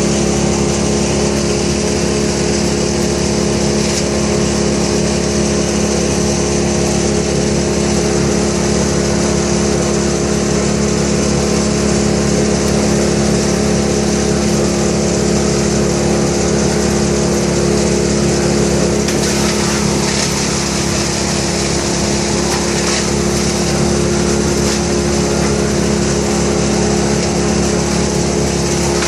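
A petrol engine running steadily at a constant speed, with no change in pitch or load.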